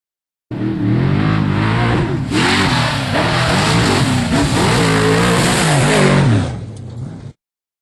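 Off-road race vehicle's engine revving hard, its pitch rising and falling again and again as the throttle comes on and off, over a steady hiss of wind or tyre noise. It starts abruptly about half a second in, drops away near the end and cuts off.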